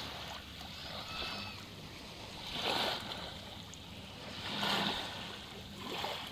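Small waves washing in over shallow sand at the water's edge, the wash swelling three times, about two seconds apart.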